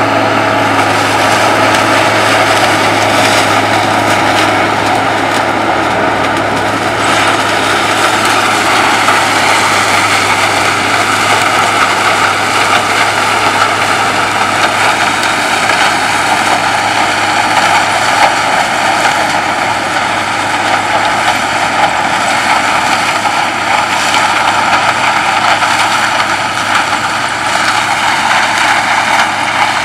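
Sugarcane harvester cutting and loading cane, its engine and machinery making a loud, steady din with a constant whine.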